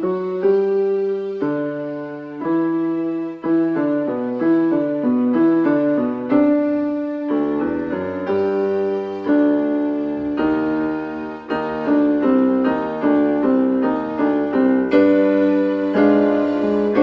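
Electronic keyboard played with a piano sound: a piece of sustained chords under a melody, the notes changing about every half second to a second.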